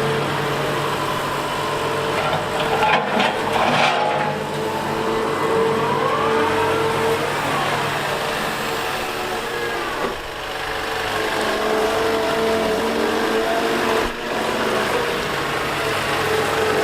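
Liebherr A 910 compact wheel excavator's diesel engine running steadily, with a hydraulic whine rising and falling as the arm works. A cluster of metallic clanks comes about three seconds in, and a single knock comes near the end.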